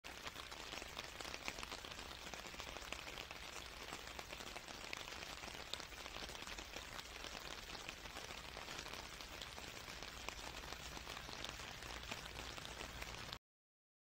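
Steady rain falling, a dense patter of small drops over an even hiss, which cuts off suddenly near the end.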